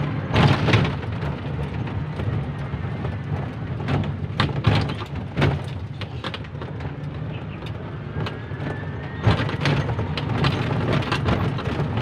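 Engine of a small motor vehicle running steadily while driving, heard from on board, with occasional knocks and rattles from the ride.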